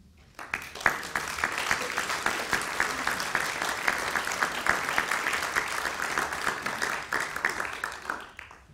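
Audience applauding: dense clapping that starts about half a second in, holds steady, and dies away near the end.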